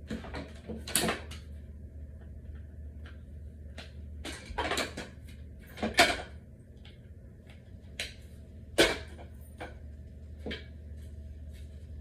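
Knocks, clicks and light clatter of flat-pack dresser panels and small assembly fittings being handled, with the sharpest knocks about six and nine seconds in, over a steady low hum.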